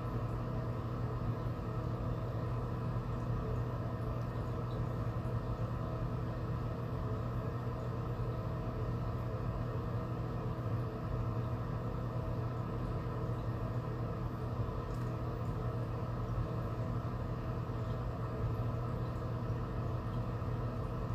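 Steady electrical hum of a small motor, with a low drone and fainter higher tones, unchanging throughout.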